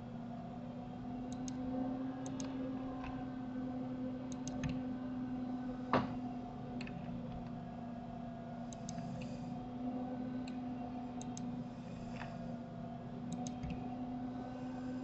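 Computer mouse and keyboard clicking, in scattered short pairs of clicks, with one sharper click about six seconds in, over a steady low hum.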